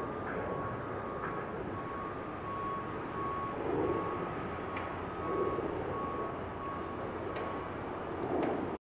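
Reversing alarm beeping in a steady repeated pattern over a constant background rumble of traffic and wind; the beeps stop about seven seconds in.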